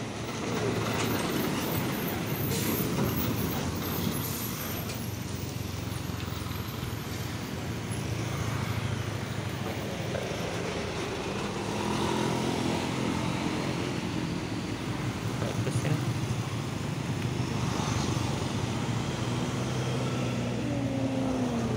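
Diesel trucks passing close by, their engines running steadily with traffic noise around them. A falling whine comes near the end.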